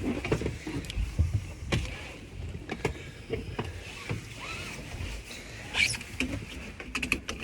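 Scattered short clicks and knocks from handling things inside a vehicle, over a low rumble.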